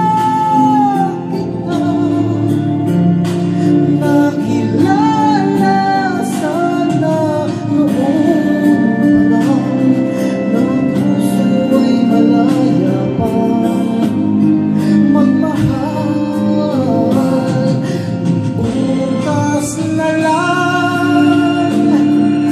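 A man singing a Tagalog love ballad over instrumental accompaniment, holding long notes and bending the melody up and down.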